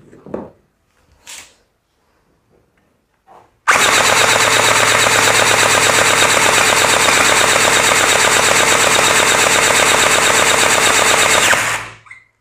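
HK416D gel blaster firing one continuous full-auto burst of about eight seconds, its electric gearbox cycling rapidly as it shoots gel balls. The burst starts about four seconds in and cuts off near the end, after a few light handling clicks.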